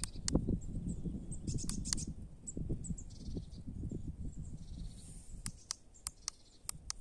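Low, fluctuating rumbling noise with a series of sharp clicks: one near the start, a few around two seconds in, and a quick cluster of five near the end. Faint bird chirping sits in the background.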